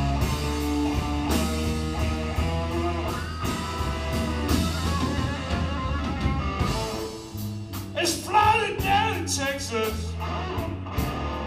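Live slow blues from an electric guitar, electric bass and drum kit, with long held bass notes under the guitar. About eight seconds in, a louder lead part with wavering, bending notes comes in.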